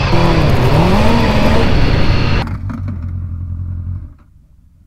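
Honda CBF600's inline-four engine revving as the motorcycle pulls away, its pitch dipping and then climbing. About two and a half seconds in it drops to a lower, steady note, which cuts off about a second later.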